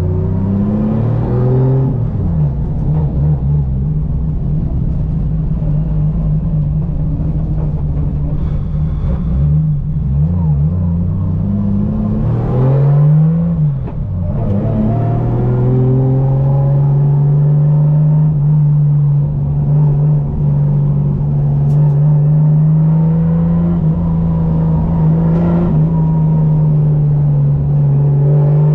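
Toyota GT86 engine heard from inside the cabin while the car is driven. It revs up and down under the throttle, climbs and drops sharply about thirteen seconds in, then holds a steady high-revving drone.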